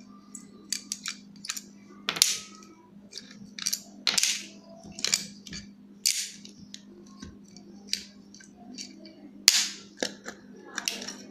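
Metal clicks, taps and short scrapes as the screws and cast metal housing of a loudspeaker driver unit are unscrewed by hand and worked apart. There are many sharp clicks and a few longer scrapes.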